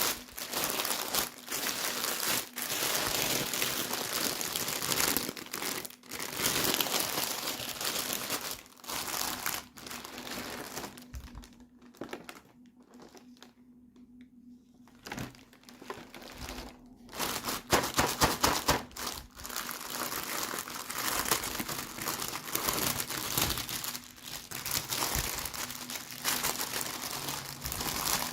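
Packaging being crinkled and torn open by hand, in stretches with a few short pauses around the middle.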